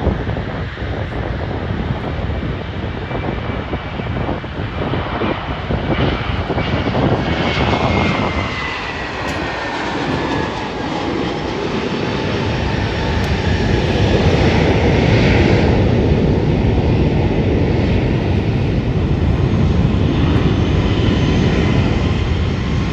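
Airbus A321-231 with IAE V2500 jet engines passing by as it comes in to land: a loud jet roar whose engine whine falls in pitch as it goes past, then a steadier, louder roar in the second half.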